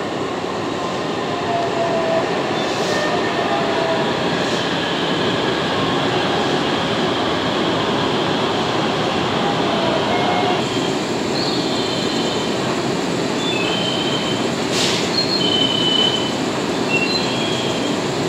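Train noise at a station platform: a steady rumble with short high-pitched wheel squeals and a few brief hisses.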